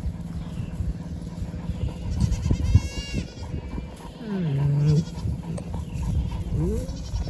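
Goats bleating: a short, high bleat about three seconds in, a lower, longer one about a second later, and a brief rising call near the end, over a steady low rumble.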